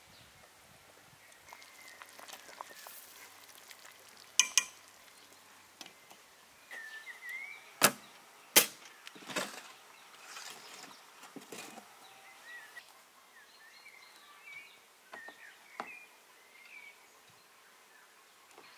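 Scattered sharp metal clanks and clicks of cookware being handled at a wood-fired stove (pot lid, oven door and baking pan), the loudest two close together about eight seconds in. Birds chirp now and then in the background.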